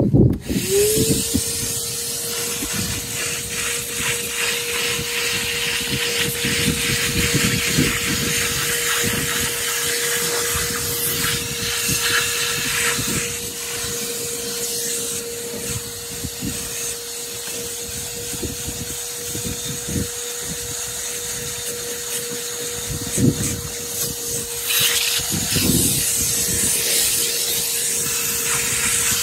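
DeWalt DXV38S wet and dry vacuum switched on, its motor spinning up within about a second to a steady whine and then running steadily with a strong rush of air. Uneven low rumbling comes and goes under it.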